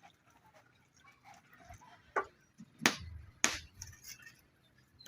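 A few sharp knocks of cooking gear against a pot, loudest about three seconds in with another half a second later, between quiet handling sounds.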